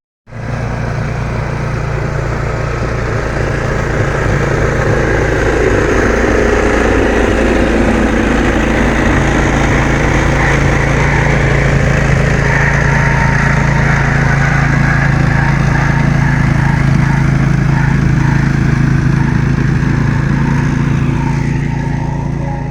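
An engine running steadily at close range with a constant hum, starting and stopping abruptly.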